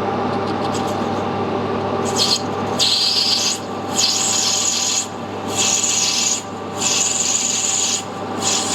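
Metal lathe running with a steady motor hum while a tool cuts a brass fitting, the high scraping hiss of the cut coming in repeated strokes of about a second from two seconds in.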